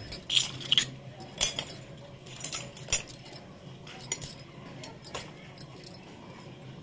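Miniature stainless-steel toy pots and utensils clinking and tapping as they are handled and set down on a concrete floor: a string of light metallic clinks, sparser and quieter in the last second or so.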